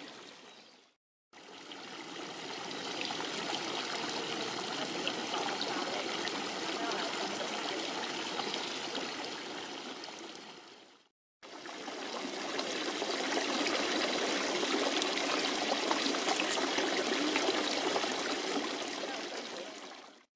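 Water running and trickling steadily, heard in two stretches that each fade in and out, with a brief break around eleven seconds in.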